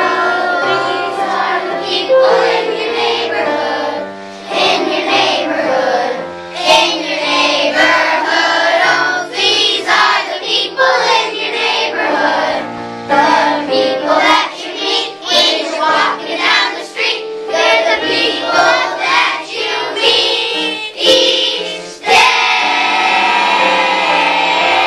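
A group of young children singing together in unison over a recorded musical accompaniment with a steady bass line.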